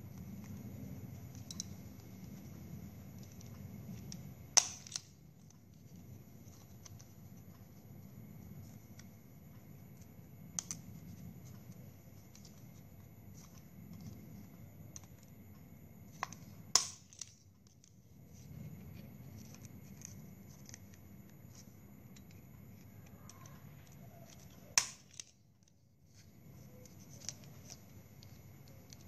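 Small handheld stapler snapping shut on plastic drinking straws: three sharp clacks spread through, the first about five seconds in, with fainter ticks and crackling of the straws being handled in between.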